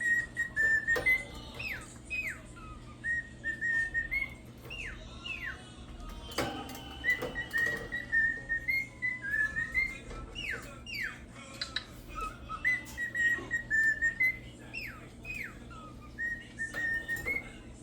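Cockatiel whistling a learned tune: a held note that steps up slightly, then two quick falling notes, the phrase repeated three times. A single knock about six seconds in.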